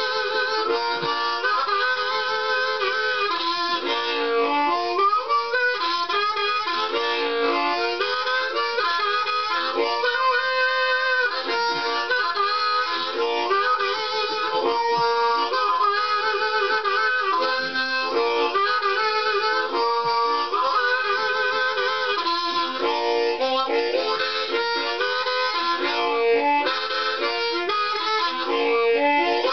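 Harmonica played solo in train-imitation style: rhythmic chords repeated in a steady pattern, the tone shaped by hands cupped around the harp.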